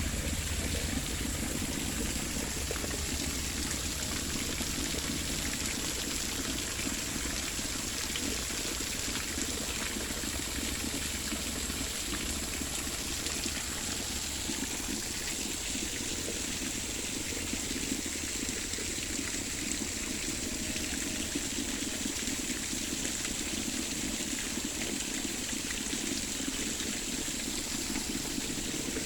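Running water pouring and trickling steadily, like a small garden waterfall.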